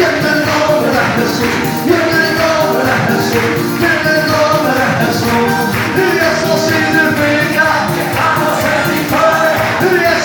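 Live worship band playing loud, upbeat praise music with a steady drum beat, with voices singing along.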